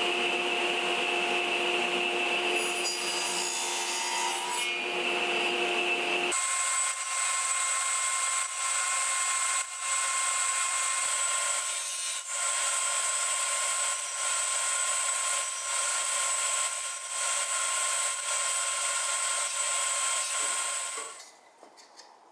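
A table saw blade runs and cuts across the ends of wooden door-frame rails to form tongue-and-groove joinery, with steady blade tones under the noise of the cut. The sound changes abruptly about six seconds in and stops shortly before the end, leaving faint handling of the wood pieces.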